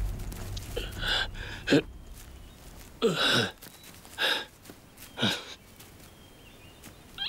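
A man groaning and gasping in pain: five short cries about a second apart, each falling in pitch.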